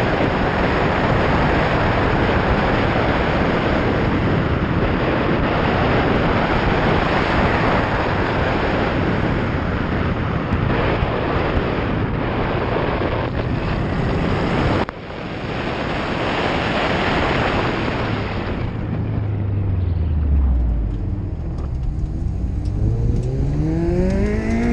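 Heavy wind rush on the microphone and road noise from a Subaru WRX driven hard through an autocross course. Near the end the rush drops away and the turbocharged flat-four's note falls as the car slows, then rises again as it picks up speed.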